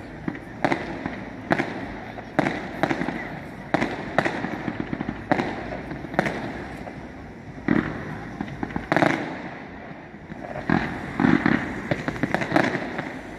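Aerial firework shells bursting one after another: an irregular run of sharp bangs, each followed by a short echo, coming thicker and faster near the end.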